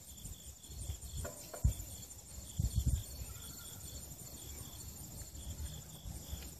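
Insects chirping in grass, a steady, rapid high-pitched pulsing, with a few dull low thumps between about one and a half and three seconds in. No cannon shot is heard.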